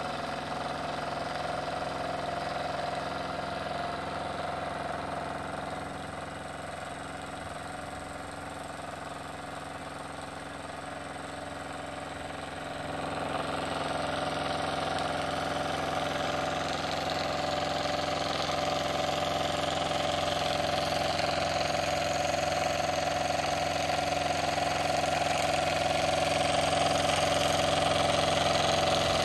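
Wilesco D24 model steam engine running steadily, its flywheel spinning and driving the dynamo: a continuous mechanical running hum that grows louder about halfway through.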